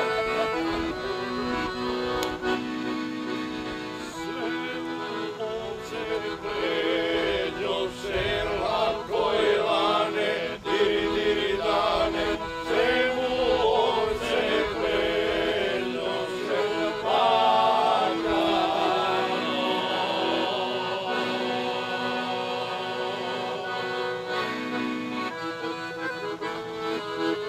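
Piano accordion playing a Serbian folk tune with held chords, joined by men's voices singing along through the middle stretch.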